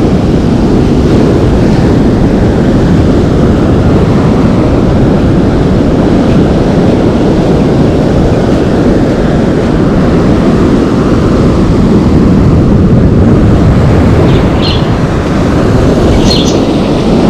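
Wind buffeting the microphone of a camera on a moving bicycle: a loud, steady, low rumbling noise. A couple of short high chirps come near the end.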